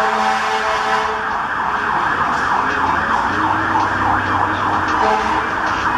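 Fire truck siren sounding loudly. From about a second and a half in until about five seconds it runs in a rapid rising-and-falling yelp, about three sweeps a second, with a steady droning tone before and after.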